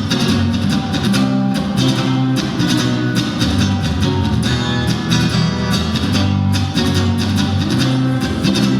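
Guitar playing an instrumental passage of a rock song, strummed chords over a steady bass line.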